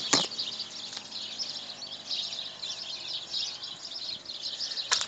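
Many small birds chirping and twittering in a dense, continuous chorus. A sharp knock sounds just after the start, the loudest moment, and another near the end.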